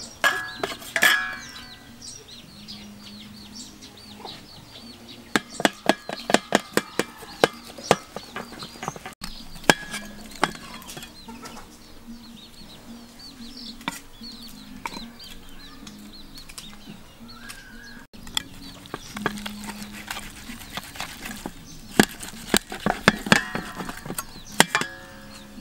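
Kitchen knife cutting through cooked pork leg and clicking against a metal serving tray in quick runs of sharp ticks, about five seconds in and again near the end. Chickens cluck in the background.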